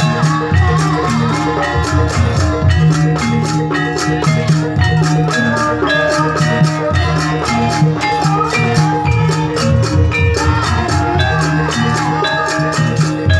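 Loud music accompanying a Javanese troupe's Garuda bird dance: drums keep a steady beat under several pitched melody lines.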